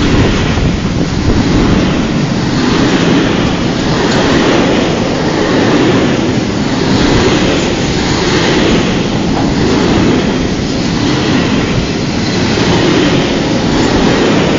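Freight train of covered sliding-wall wagons passing close by: a loud, steady rumble of steel wheels on the rails that swells and eases about every one and a half seconds as each wagon goes by.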